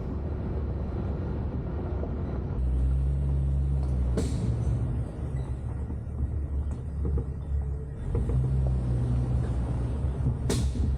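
Jeep Cherokee XJ on the move: a steady low rumble of engine and road noise that grows heavier a few seconds in. Two sharp knocks stand out, one about four seconds in and one near the end.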